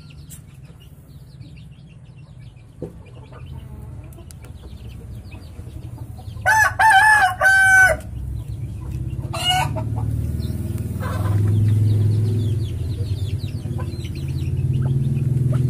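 A rooster crows once about six and a half seconds in, a loud call in three quick parts lasting about a second and a half, followed about two seconds later by a shorter call. Faint chirps are scattered throughout, over a low steady hum that grows louder in the second half.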